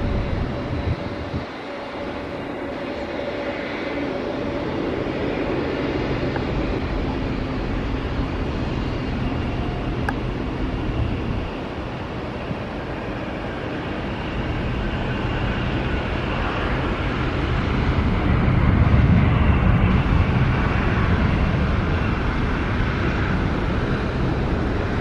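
Jet engines of an ANA Boeing 787 (Rolls-Royce Trent 1000s) as it lands and rolls out along the runway, a steady rumble and roar. The low rumble swells to its loudest about three-quarters of the way through.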